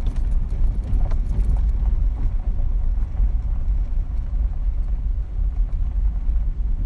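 Car driving slowly, a steady low road and engine rumble heard from inside the cabin, with a few light clicks early on.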